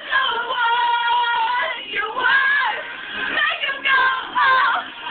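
Girls' voices singing, holding long notes that waver and bend, with short breaks between phrases.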